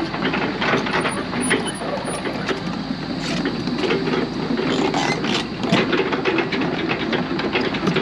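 Mini excavator running, its engine a steady drone under irregular metallic clanks and rattles.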